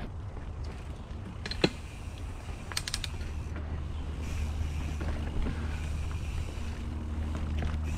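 Mountain bike being ridden over dirt singletrack: a steady low rumble of tyres and moving air, with a sharp knock about a second and a half in and a quick rattle of the bike's parts a little later as it goes over bumps.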